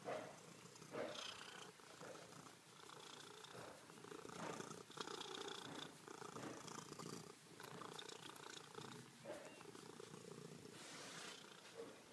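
Domestic cat purring softly and continuously.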